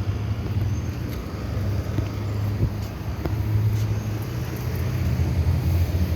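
Steady low hum and fan noise of running outdoor air-conditioning condensing units, with a few faint clicks.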